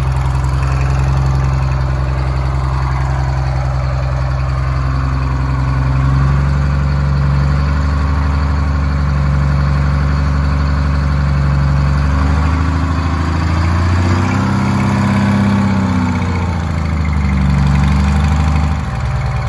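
Detroit Diesel 6-71 two-stroke inline six in an old Kenworth truck, idling loud through an exhaust with a missing connection, with a couple of light revs in the second half.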